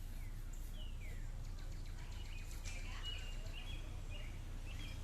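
Small birds chirping: a few short falling chirps, then a quick run of chirps and trills in the second half, over a steady low background hum.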